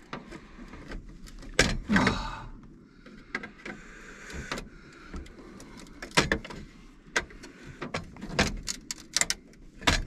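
Irregular clicks, knocks and light scraping of hands working small parts loose at an old car's steering column and dash, with brittle plastic pieces cracking and snapping.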